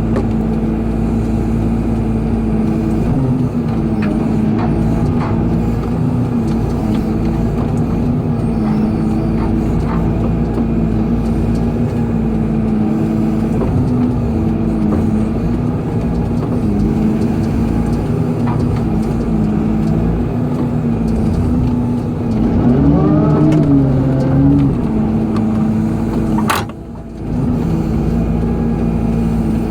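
Excavator's diesel engine running steadily under working load, its pitch wavering slightly as the hydraulics work. It rises and strains for a couple of seconds past the twenty-second mark. Soon after comes a sharp click and a brief drop in sound before the engine note returns.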